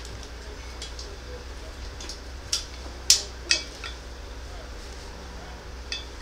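A few sharp metal clinks and taps as hand tools knock against the wrought-iron stand, loudest about three seconds in, over a steady low hum.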